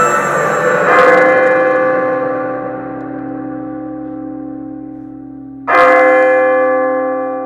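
A deep bell-like tone struck twice, about five seconds apart; each strike rings on and slowly fades.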